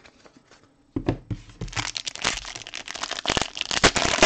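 A foil trading-card pack wrapper crinkling and tearing as it is ripped open by hand, after a single knock about a second in.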